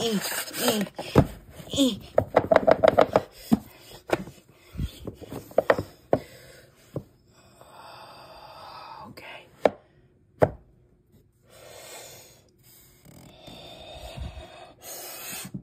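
Manga volumes and a figure being handled on a bookshelf: a quick run of light clicks and taps, then scattered knocks with two sharper ones, and the soft rub of books being slid along the shelf.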